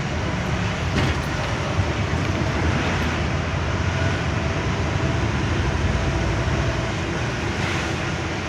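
Truck engine and road noise heard from inside the cab while driving: a steady low rumble, with a brief click about a second in.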